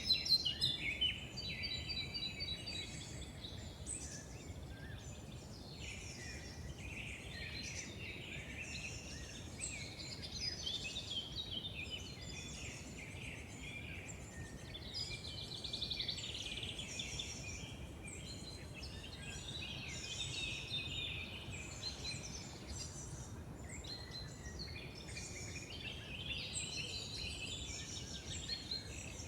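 Several songbirds singing and chirping at once, with overlapping trills and quick chirps throughout, over a steady low outdoor hiss.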